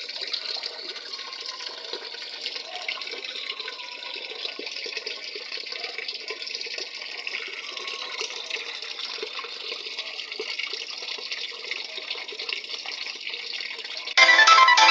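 Water pouring into the tub of a top-load automatic washing machine as it fills, a steady hiss. Music comes in suddenly just before the end.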